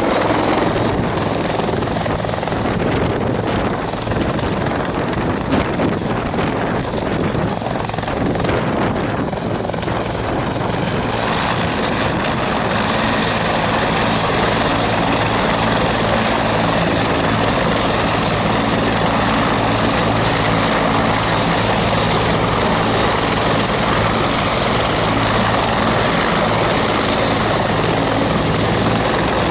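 Bell 412 helicopter's twin turbine engines and four-blade main rotor running, first hovering low, then turning on the ground, with a steady high turbine whine over the rotor noise. The sound changes about a third of the way through and then holds steady.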